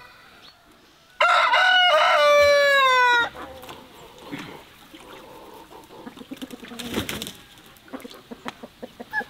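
Rooster crowing once, a loud crow of about two seconds that ends on a falling note, followed by soft scattered taps and scuffs.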